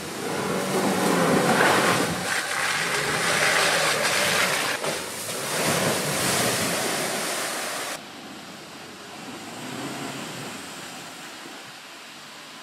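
New-shape Land Rover Defender splashing through muddy puddles: a loud rushing of spray and tyres in water over a low engine note. It cuts off sharply about eight seconds in to a quieter sound of the vehicle crawling over mud.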